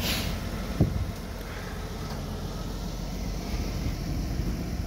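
Steady low rumble of the tow truck's engine running, with wind on the microphone and a single knock about a second in.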